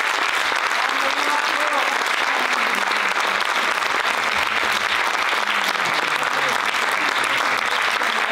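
Theatre audience applauding, a steady, sustained round of clapping, with a few voices underneath.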